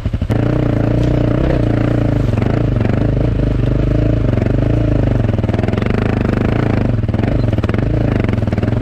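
Honda CRF300 Rally's single-cylinder four-stroke engine chugging at idle, then opening up a third of a second in and running under load, the revs rising and falling as the bike is ridden.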